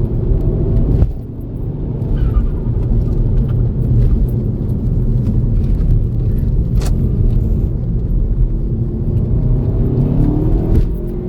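MK7 Golf GTI's turbocharged 2.0-litre four-cylinder engine running under way, with a sudden drop in level about a second in as the throttle is lifted, then the revs climbing steadily near the end under acceleration.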